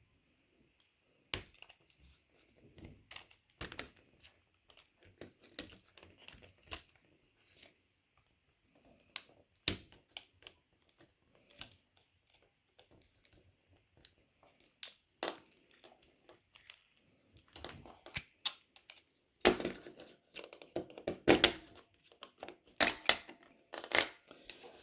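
Plastic case of a Sony TV remote being pried apart with a small tool: scattered clicks and scrapes of plastic on plastic, coming faster and louder in the last five seconds as the case clips pop loose.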